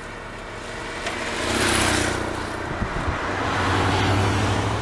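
A motor vehicle's engine and tyre noise swelling about a second and a half in, then running on with a steady low hum.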